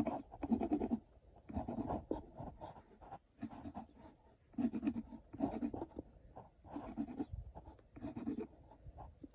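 Graphite pencil scratching across a spalted birch board, sketching lines in short, quick strokes that come in irregular runs.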